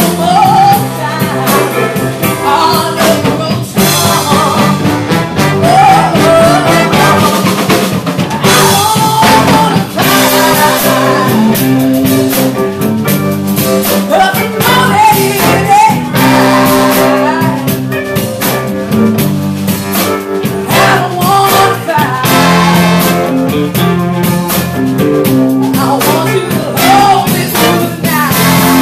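A live soul and R&B band plays, with a woman singing lead into a microphone over drum kit, electric guitar, keyboard and horns.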